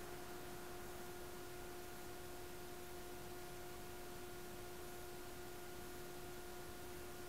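A faint, steady electrical hum with a couple of higher overtones over a soft hiss.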